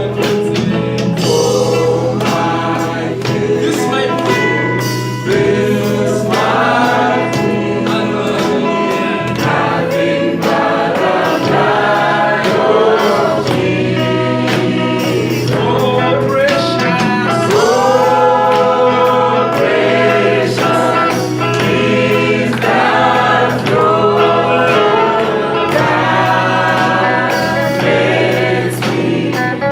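Gospel music: a choir singing over accompaniment with a regular beat.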